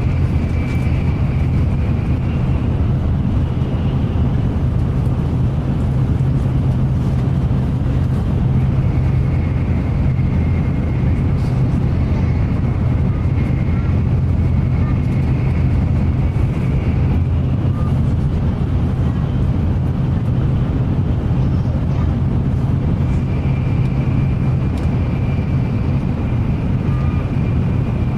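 Shinkansen bullet train running at speed, heard inside the passenger cabin: a steady low rumble over an even rushing noise, with a faint high whine that fades in and out.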